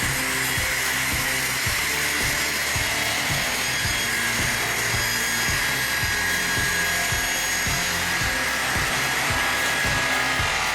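Background music with a steady beat, over a constant whirring noise from a machine.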